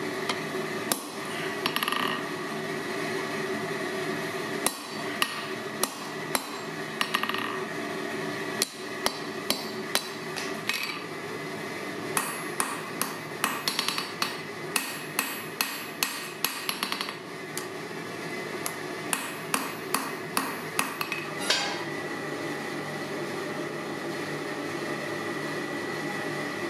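Hand hammer striking hot steel on an anvil, in irregular runs of blows, some with a short metallic ring. The blows stop about four-fifths of the way through, leaving a steady hum.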